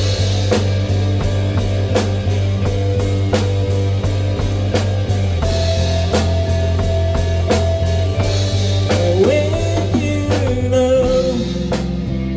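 Rock song instrumental intro: electric guitar over drums and bass, with bending guitar notes about nine seconds in.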